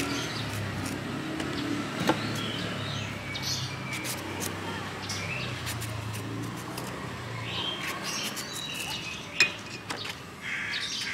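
Small birds chirping over a steady low hum of street traffic, with scattered light clicks and taps, the sharpest about two seconds in and near the end.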